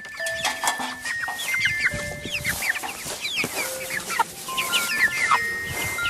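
Many chickens calling at once: a dense, overlapping chorus of short, falling chirps.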